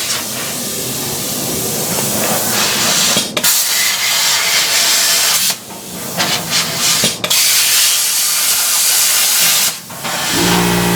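Pneumatic grinding tool cutting and grinding steel, running in long hissing bursts with a few short pauses. About ten seconds in, an air compressor motor starts with a steady hum to refill its tank.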